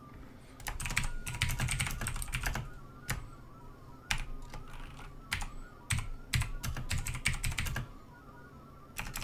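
Computer keyboard being typed on, quick runs of keystrokes broken by short pauses, as a message is keyed in.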